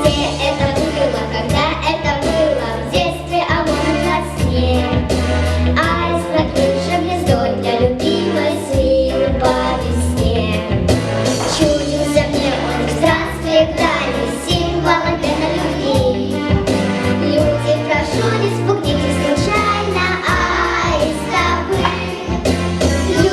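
Young children singing a song together over instrumental accompaniment with a steady beat.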